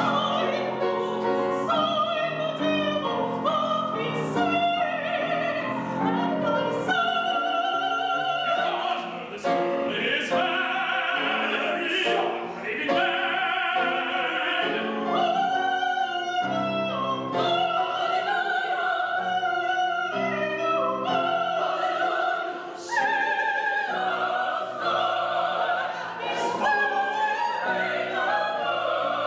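A woman singing an operatic solo with wide vibrato, accompanied by grand piano.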